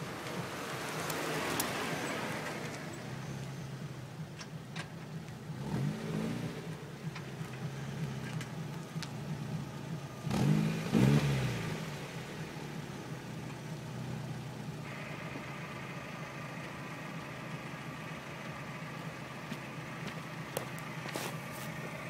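Stock Mazda MX-5 NB 1.8-litre four-cylinder engine idling through its factory exhaust, blipped twice: a short rev about six seconds in and a bigger one just after ten seconds, each falling straight back to idle. A steady higher whir joins the idle about two-thirds of the way in.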